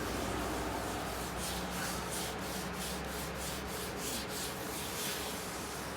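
Wet-sanding a freshly painted car hood by hand with 600-grit sandpaper and soapy water: steady rubbing strokes, back and forth about four times a second, taking down spots where the paint went on too thick.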